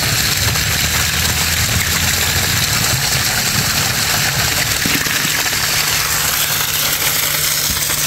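Water gushing steadily from a pipe outlet and splashing onto rocks while a plastic bottle is held under the stream to fill, with a steady low hum underneath.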